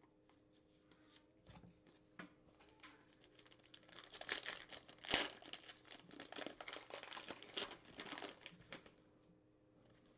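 A plastic-wrapped pack of football trading cards being torn open and crinkled by hand: a few light clicks at first, then from about four seconds in a dense crinkling crackle of the wrapper with a sharp rip about five seconds in, dying away near the end.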